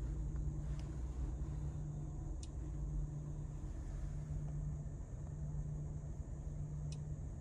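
Steady low hum and rumble inside the cabin of a stationary Mercedes-Benz W206 C-Class, with two faint short clicks about two and a half seconds in and near the end.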